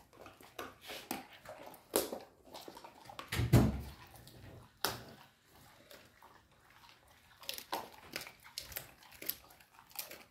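Polish Tatra Sheepdog gnawing a dried beef ear, with irregular crunches and clicks of chewing. One louder, low thump comes about three and a half seconds in.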